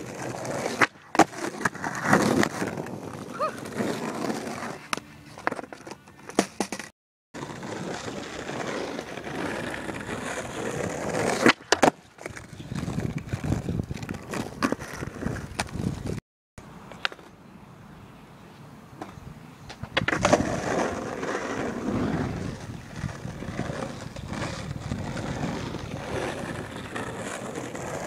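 Skateboard wheels rolling over rough asphalt, broken by the sharp snap of the tail popping and the clack of the board landing on each tre-flip (360 flip) attempt. The sound drops out to silence briefly twice.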